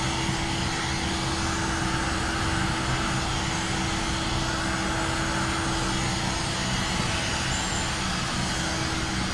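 Heat gun blowing steadily with a constant hum, heating window tint film on a car's front windshield to shrink it to the glass's curve.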